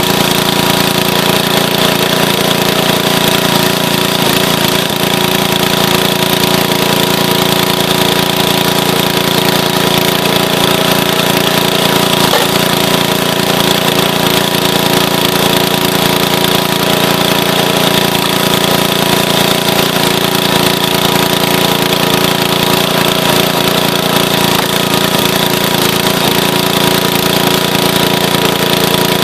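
Small gasoline engine of a towable hydraulic log splitter running steadily, loud and close.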